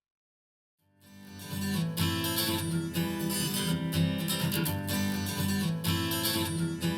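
Silence, then about a second in a song's intro fades in: strummed acoustic guitar over a steady bass line and a beat about once a second, played back through a small studio monitor for a sound demo.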